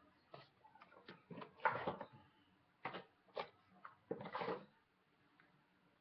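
Scattered handling noises: a few soft knocks and rustles, the loudest about two seconds in and the longest near four and a half seconds.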